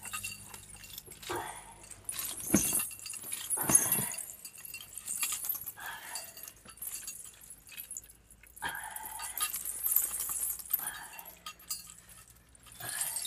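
Metal pendants and bells on a Mongolian shaman's costume jangling in irregular bursts as he sways. There are short vocal sounds that are not words, and two sharper strokes about two and a half and four seconds in.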